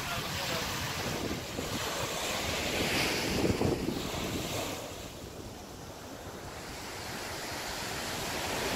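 Small waves breaking and washing up a sandy beach, the surf swelling to a peak a few seconds in, easing off, then building again, with wind rumbling on the microphone.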